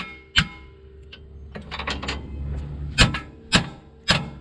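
Hammer blows on steel steering parts, each one ringing metallically: two blows about half a second apart, a pause, then three more at the same pace. They are being used to beat a stuck part of the old rack and pinion loose.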